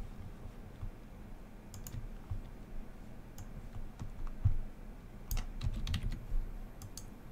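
Scattered computer keyboard keystrokes and mouse clicks, a few at a time with pauses between them. A couple come in quick succession late on, and there is a soft low thump on the desk about halfway through.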